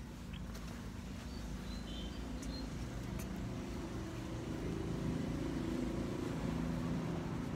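Steady low engine hum of a motor vehicle, slowly growing louder.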